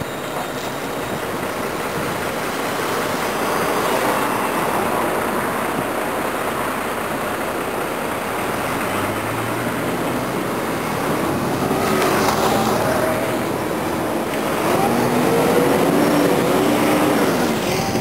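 Moving road traffic and wind heard from the open top deck of a city tour bus, a steady rush of noise. In the second half an engine's note rises and falls as the vehicles accelerate.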